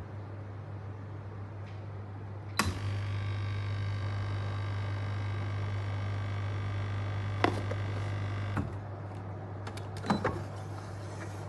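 A De'Longhi PrimaDonna Elite automatic espresso machine runs its motor with a steady whine for about six seconds. The motor starts and stops with a click, and a few more clicks follow near the end.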